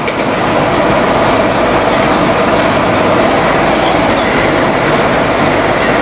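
Loud, steady machinery noise from a rice husk boiler's fuel-feeding equipment as a skip-hoist bucket lifts rice husks and tips them into the feed hopper.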